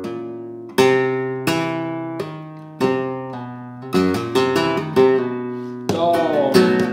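Flamenco guitar playing a short remate por bulerías: a few strummed chords that ring out one after another, then a quicker run of notes and a denser flurry of strokes near the end.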